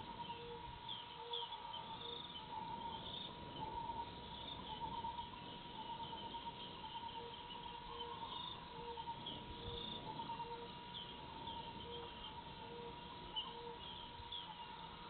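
Dusk grassland ambience of small animals calling: many short high chirps, a low short note repeating about every 0.7 s, and a steady high tone underneath.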